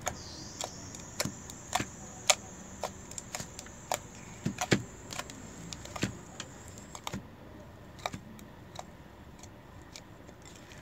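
Fingers pressing and poking soft homemade slime in a bowl, making irregular sharp sticky clicks and pops.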